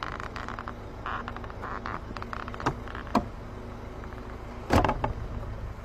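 Car lockout work on a door: short raspy bursts and a few sharp clicks, then a louder knock a little before the end, over a steady low hum.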